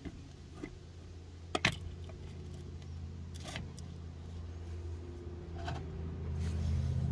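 Thin stream of old gear oil trickling from a golf-cart transaxle drain hole into a cut-open plastic pop bottle, under a steady low hum that swells toward the end, with a few light clicks as the bottle and tool are handled.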